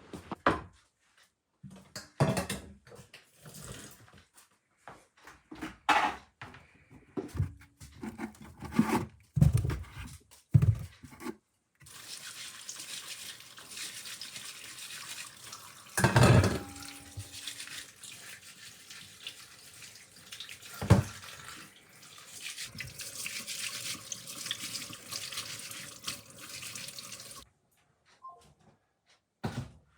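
Scattered knocks and clatter of things being handled, then water running for about fifteen seconds, with two sharp knocks partway through. It stops abruptly near the end.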